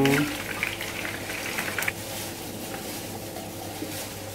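Leftover hot frying oil crackling and sizzling in an empty nonstick frying pan, busier for about the first two seconds, then softer.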